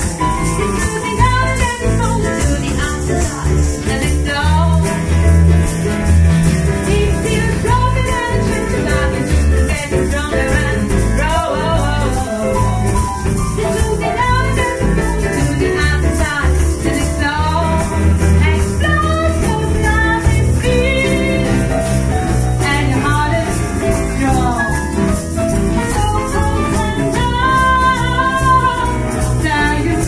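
A small live band playing: a woman singing over strummed acoustic guitar, keyboard and hand drums, with a low bass line underneath and a shaking rattle-like percussion.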